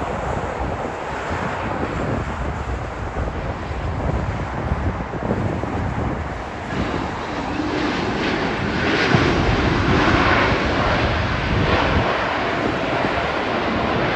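Jet noise from a wide-body airliner's engines: a broad rushing noise that swells about seven seconds in and stays loud, with wind buffeting the microphone underneath.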